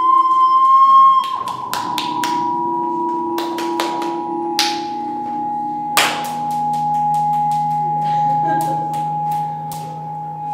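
Acoustic feedback from condenser microphones aimed at active loudspeakers: a steady whistling tone near 1 kHz over lower steady hums. About a second in, the top tone slides down a little in pitch and settles. A scattering of sharp clicks and knocks runs over it.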